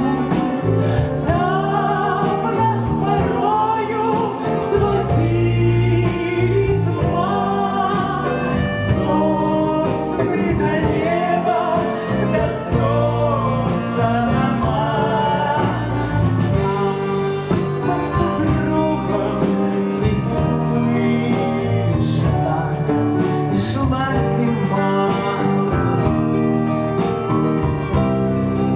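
Live band playing a song with grand piano, bayan (button accordion), clarinet, bass and drums, a melody line moving over a steady rhythm.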